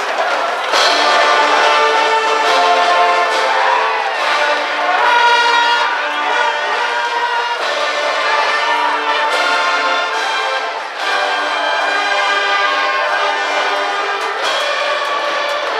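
A school brass band of trumpets and trombones playing a baseball cheering tune in unison.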